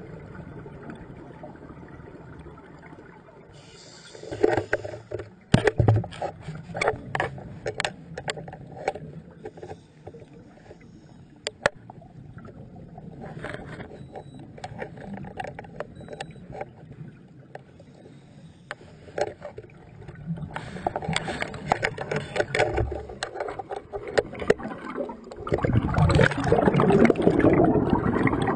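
Water sloshing and gurgling, with a run of sharp clicks and knocks between about five and twelve seconds in, then a louder rush of water building near the end.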